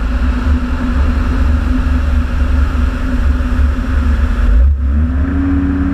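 Atol 650 amphibious light aircraft's engine and propeller droning steadily as its hull runs across the water, with the rush of spray and heavy wind rumble on the wing-mounted microphone. Near the end the sound dips briefly and the engine tone comes back slightly higher and steadier.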